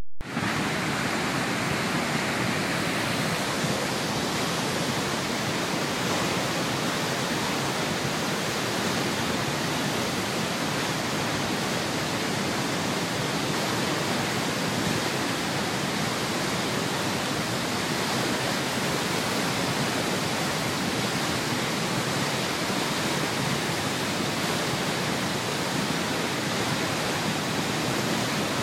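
Box Cañon Falls, a large waterfall plunging through a narrow rock gorge, making a steady, even rush of falling water.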